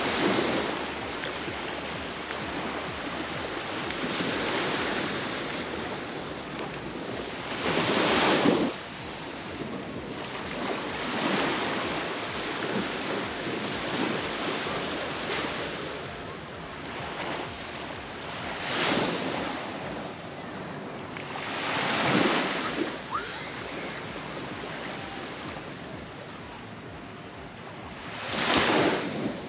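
Baltic Sea waves breaking on the beach: a steady wash of surf with a louder surge every few seconds as each wave comes in.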